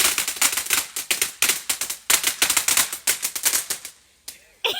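Small ground firework crackling: a rapid, irregular run of sharp pops and cracks that stops about four seconds in. It is a dud that only crackles and smokes instead of shooting up into the air.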